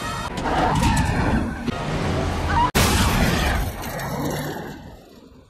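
Action-film soundtrack: music under dense crashing and booming effects, with a brief dropout a little under three seconds in, fading away near the end.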